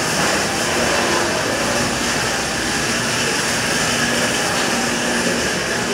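Steady, dense background din of a busy buffet restaurant's dining room, a constant wash of noise with faint, indistinct voices in it.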